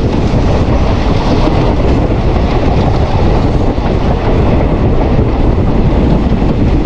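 Passenger train running along the track, heard from on board: a loud, steady rumble of wheels and rails.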